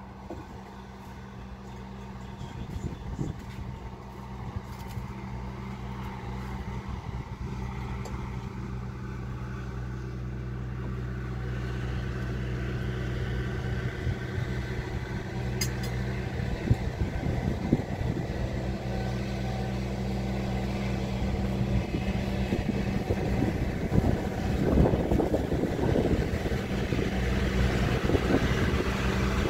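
An engine running at a steady speed, its hum gradually growing louder.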